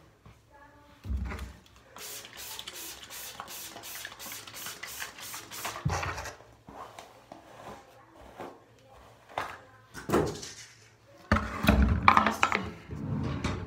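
Quick, even strokes of a hairbrush through hair close to the microphone, about three a second for several seconds, with knocks and loud handling noise of objects being picked up near the end.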